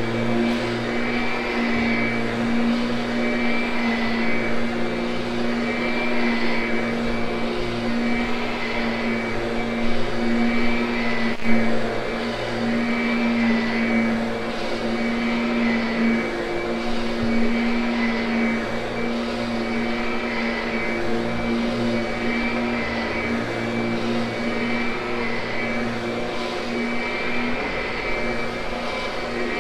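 Kirby upright vacuum running steadily with a whine, grooming carpet as it is pushed back and forth, its sound swelling and easing slightly with the strokes. A single sharp click comes about eleven seconds in.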